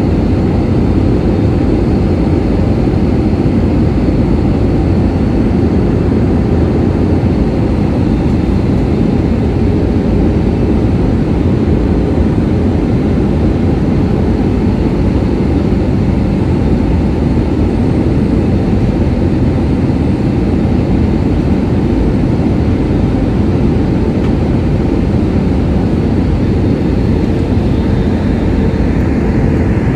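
Steady roar of a jet airliner in flight, heard from inside the passenger cabin: engine and airflow noise, deep and unchanging.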